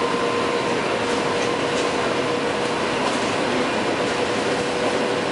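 Inside a passenger car of an EP2D electric commuter train running at speed: a steady rolling rumble with a steady whine running through it.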